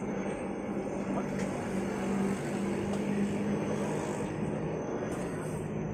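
A steady low mechanical hum over an even wash of background noise, with a few faint clicks.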